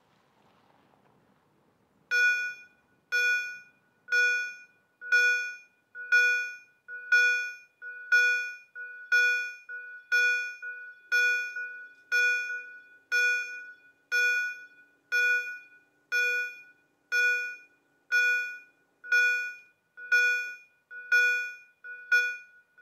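Level crossing warning bell ringing about once a second, each stroke dying away quickly. It starts about two seconds in, as the crossing is activated and the barriers lower for an approaching train.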